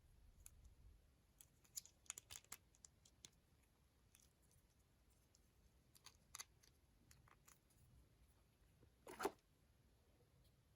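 Faint crinkling and small clicks of candy wrappers being handled and torn open, in scattered bursts, with one louder tearing rustle near the end.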